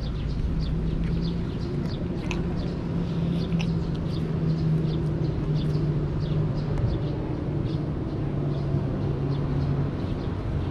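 Outdoor city ambience: small birds chirping in short, repeated high notes over a steady low hum.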